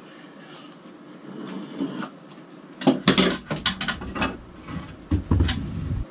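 Wooden posts knocking and thudding as they are shifted and set against the ceiling, a run of clattering knocks about three seconds in and heavier thuds around five seconds in.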